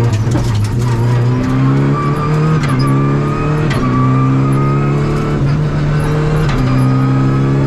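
Rally Renault Clio's four-cylinder engine heard from inside the cabin, pulling hard and shifting up and down through the gears: its pitch climbs, drops back at each shift, and climbs again, with a few sharp clicks along the way.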